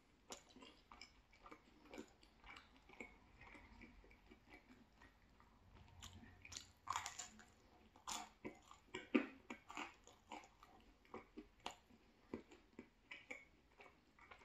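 A person chewing thin-crust pizza close to the microphone: soft, irregular mouth clicks and crisp crunches of the crust, louder between about seven and ten seconds in.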